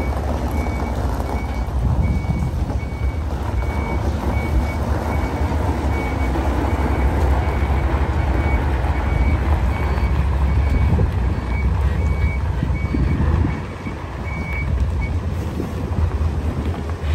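Large dump truck reversing: its diesel engine rumbles low while the back-up alarm beeps in an even series of short high beeps, which stop about fifteen seconds in.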